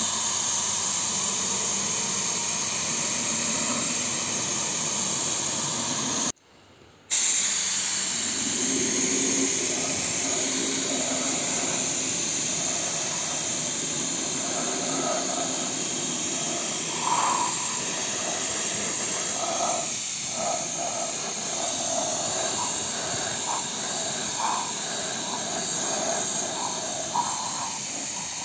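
Compressed air hissing steadily through a gravity-feed paint spray gun as it sprays paint. The hiss cuts out for under a second about six seconds in.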